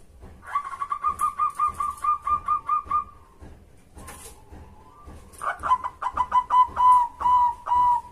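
Zebra dove (perkutut) cooing song: a quick run of about a dozen short, evenly spaced coos. About two seconds later a second run starts fast and slows into longer, drawn-out notes.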